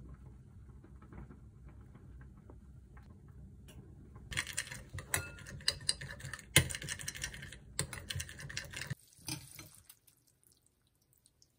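Metal spoon stirring thick chili sauce in a ceramic bowl: rapid scraping and clicking against the bowl from about four seconds in, stopping suddenly about nine seconds in. Before it, only a faint low hum with a few small clicks.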